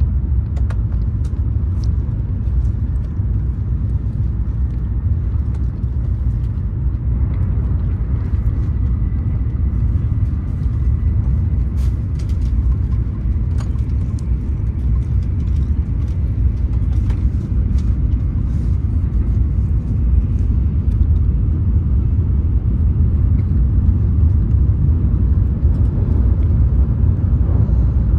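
Steady low rumble of a Shinkansen bullet train running, heard inside the passenger cabin, with a few short light clicks scattered through it.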